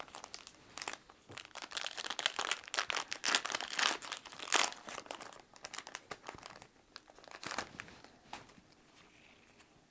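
Foil booster-pack wrapper of a Yu-Gi-Oh! card pack crinkling and tearing as it is opened by hand, loudest in the middle and dying away near the end.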